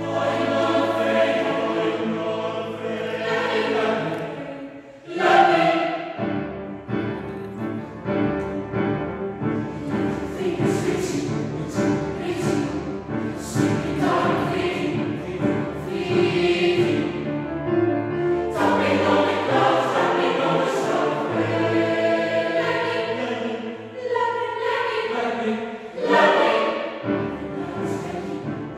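Mixed youth choir singing in full harmony, women's and men's voices together. There is a sudden loud entry about five seconds in, and another strong one near the end.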